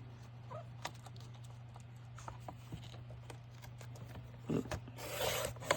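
Sheets of paper being handled and rustled, with faint light clicks, then a louder rustle near the end, over a steady low hum.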